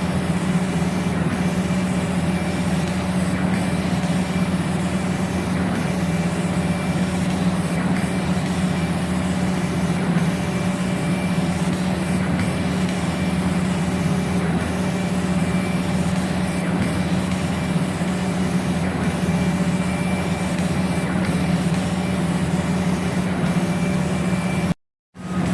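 CNC laser engraving machine running: a steady mechanical hum with a faint high whine. It breaks off briefly near the end.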